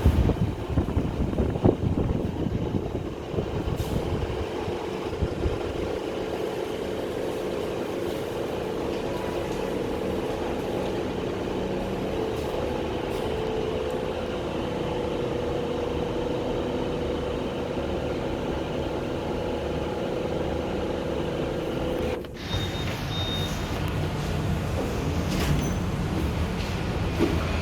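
Daikin FTC50NV14 split air conditioner running with a steady hum and held tones, while the unit is not cooling. Some irregular low bumping comes in the first few seconds. About 22 seconds in, the sound cuts off suddenly to a different steady machine noise.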